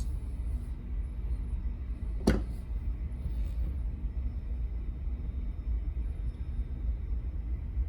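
A single sharp metal click about two seconds in, from small tools working the pins out of a disassembled Mul-T-Lock Junior cylinder, over a steady low rumble.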